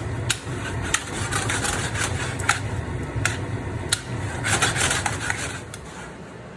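A utensil clicking and scraping against a pan as fettuccine is tossed in cream sauce, with sharp irregular clicks and two longer stretches of scraping, over a steady low hum that fades about six seconds in.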